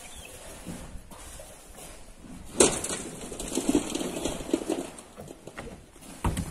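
Rocks and earth falling down a steep quarry wall: a sudden crash about two and a half seconds in, then a couple of seconds of tumbling and rattling knocks, and another sharp knock near the end.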